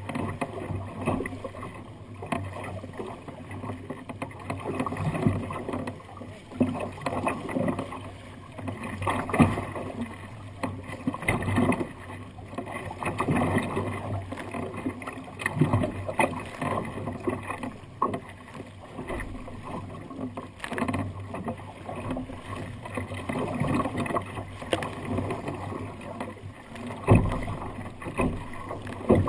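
Choppy sea water sloshing and slapping against the hull of a sea kayak under way, in uneven surges every second or two, with one sharp, loud slap near the end.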